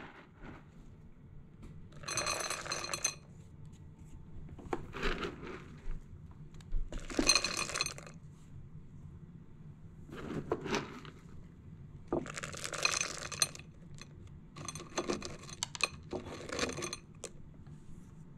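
Dry dog kibble poured into a dog bowl fitted with a silicone spiral slow-feeder insert, clinking and rattling against the bowl in about seven short pours.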